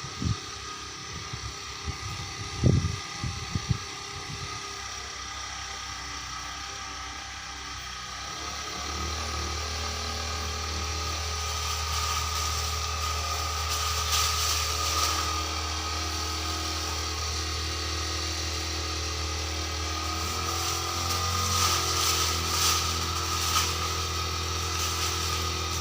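Petrol brush cutter engine running steadily, picking up and getting louder about nine seconds in, with a few sharp knocks in the first four seconds.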